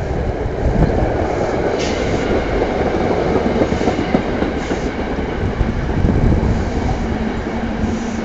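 SEPTA push-pull commuter train's passenger coaches rolling slowly past close by, wheels clattering on the rails, with a few short high squeaks. Wind rumbles on the microphone, and a steady hum sets in near the end.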